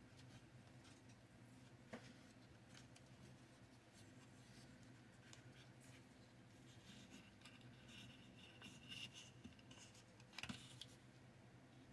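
Near silence: faint clicks and a brief scratchy rustle, with one a bit louder near the end, as small wooden model-kit pieces are handled and pressed together, over a low steady electrical hum.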